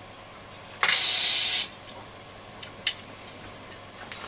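A short burst of aerosol contact cleaner (DeoxIT) sprayed from the can for just under a second, a steady hiss, into a noisy bass or treble potentiometer to clean it. A sharp click follows a couple of seconds later, with a few faint ticks.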